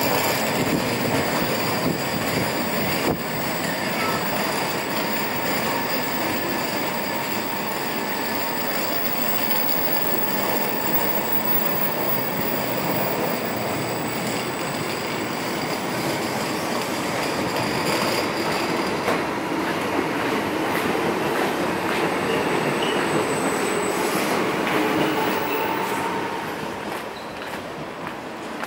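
Electric commuter train at the platform: steady, dense running noise with thin, high, steady whines over it. It grows quieter near the end.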